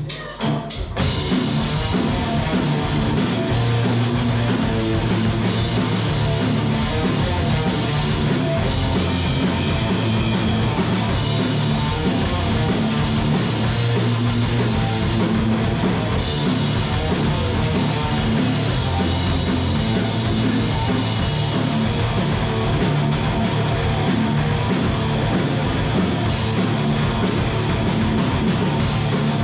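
Heavy metal band playing live, with electric guitar and drum kit; the music comes in at full level about a second in.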